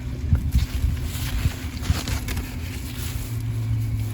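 Wind buffeting the microphone, an uneven low rumble, with a few short knocks near the start and around two seconds in and a stretch of rustling between them.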